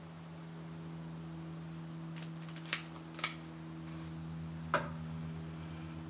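Three short, sharp clicks, two close together and a third about a second and a half later, from small jewelry-making pieces and tools being handled on the work surface. A steady low hum runs underneath.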